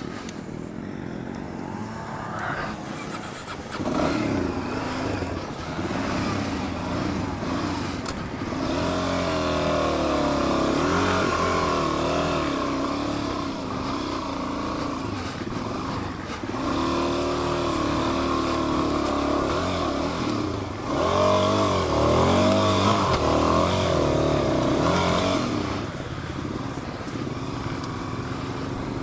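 Suzuki DR-Z400 dual-sport motorcycle's single-cylinder engine revving up and down again and again under load in deep mud, loudest about three-quarters of the way in.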